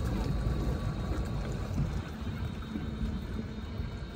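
Water rushing and lapping along the hull of a small pleasure boat under way, over a steady low rumble.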